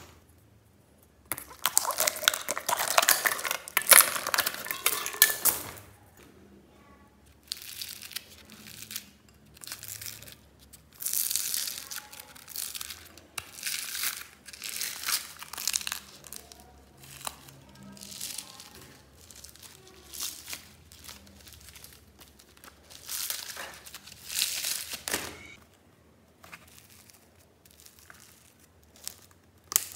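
Small polystyrene foam beads crackling and rustling as fingers dig through them and scrape them out into a plastic-bag-lined bin, with crinkling of the plastic. A long loud stretch near the start, then shorter bursts with pauses between.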